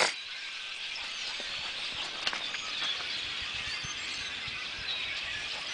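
Small birds chirping and twittering steadily, many short calls overlapping, with a couple of faint clicks about two seconds in.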